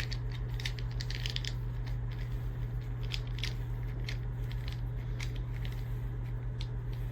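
Bristle brush of a Germ Geek keyboard cleaner spun over computer keyboard keys, making irregular light scratching and clicking, over a steady low hum.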